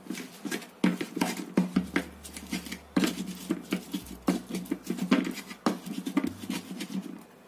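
Ulekan pestle pounding and grinding sambal in a cobek mortar: a train of irregular knocks and scrapes, about two strokes a second, as the fried chillies and shrimp paste are ground to a smooth paste.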